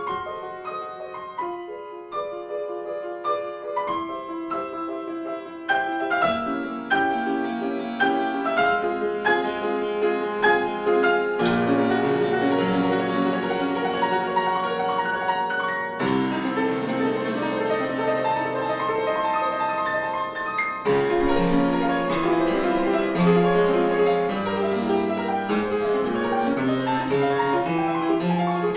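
Solo piano music, classical in style: sparse notes at first, then fuller and louder playing from about six seconds in.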